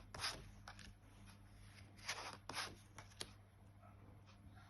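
Tarot cards being handled and laid out, heard as a few faint, soft swishes and light taps of card on card, over a low steady hum.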